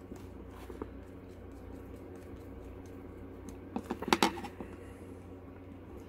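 Small clicks and scrapes of a screwdriver working a screw in a plastic terminal block connector as wires are clamped in, with a short cluster of clicks about four seconds in. A steady low hum runs underneath.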